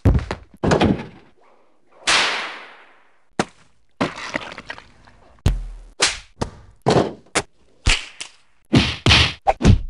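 A string of short hit and whack sound effects played one after another, each cut off quickly, with a longer noisy swish about two seconds in; the hits come faster in the second half.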